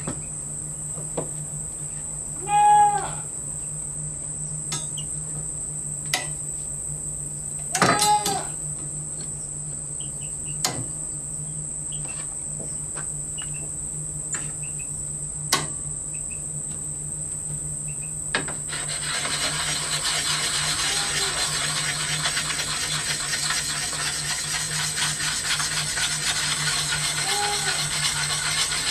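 Sharpening stone scraping steadily over the steel sword blade, starting about two-thirds of the way in, over a steady high insect trill. Before it there are a few clicks and two louder short sounds.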